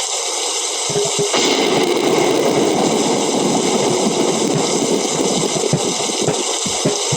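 Steady rain with a long rumble of thunder rolling in about a second and a half in and fading out near the end. Bongo drum strokes sound a few times just before the thunder and again near the end.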